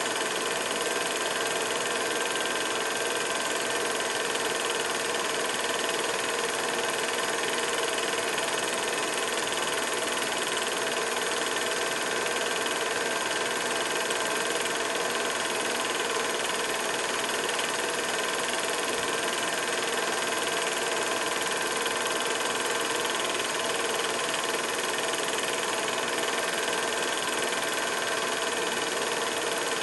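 Steady, unchanging hum and hiss with several constant tones.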